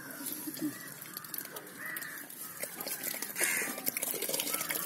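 Crows cawing, a few harsh calls with the loudest about two and three and a half seconds in, over faint background voices.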